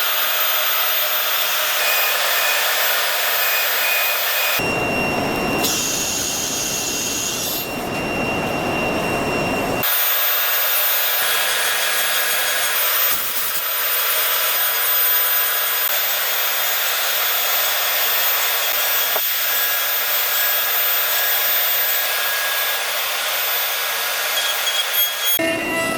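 4-axis CNC router spindle running and cutting, a loud steady high-pitched hiss of cutter on material. It changes abruptly twice in the first ten seconds, with a fuller, deeper cutting sound for about five seconds in between.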